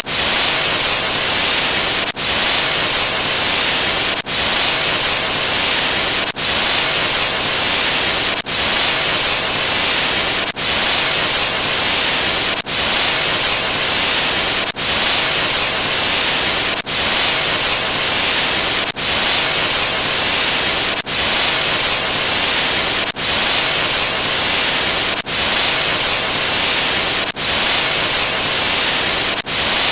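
Loud, steady static like white noise, used as a sound effect, with a brief dropout about every two seconds.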